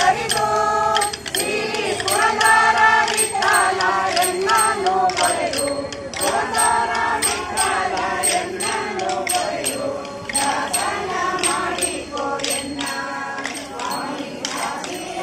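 Group of women singing a devotional bhajan in unison, over a steady rhythm of sharp clacks from kolata sticks struck together.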